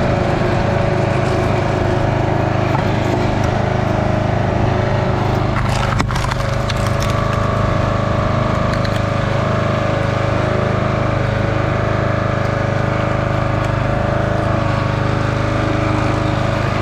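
Small gas engine of a log splitter running steadily, with one sharp crack about six seconds in as a piece of firewood splits.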